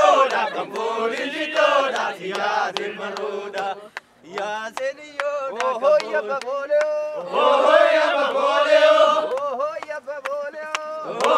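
A group of Oromo voices chanting together in a traditional celebration song, with sharp clicks through it and a short lull about four seconds in.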